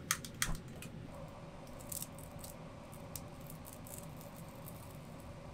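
Clicks of a long-nosed utility lighter at a gas stove burner, twice in quick succession; about a second in the burner catches and runs with a steady rush of gas flame, with a few light ticks over it.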